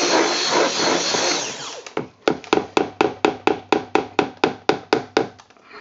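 Stick blender running in soap batter, cutting off a little under two seconds in. It is followed by a quick run of sharp clicks, about four a second, for some three seconds.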